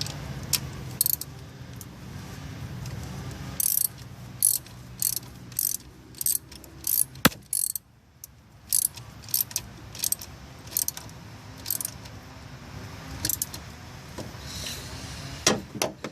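Socket ratchet clicking in short runs, with metal tools clinking, as the wire connections on a new 2003 Honda Civic alternator are fastened. The clicks come irregularly, about one or two a second, from a few seconds in.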